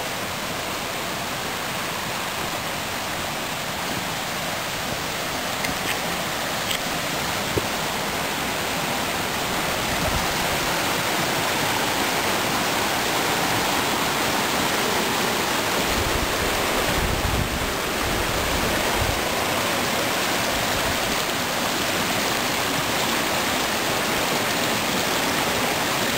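A mountain stream rushing over rocks, a steady, even rush of water. There is a brief low rumble about two-thirds of the way through.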